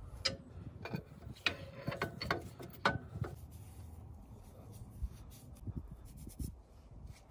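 Gloved fingers working anti-seize onto the splines of a Dana 30 front axle shaft in the steering knuckle: rubbing with a few light metallic clicks and knocks in the first three seconds or so, then quieter.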